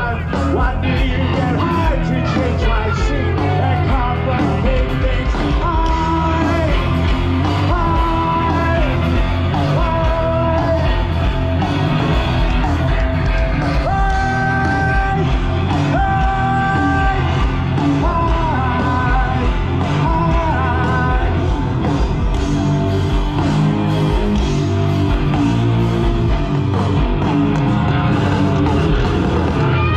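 Live rock band playing loudly with a lead vocal, heard through the festival PA from inside the crowd in front of the stage. The singer holds a few long notes about halfway through.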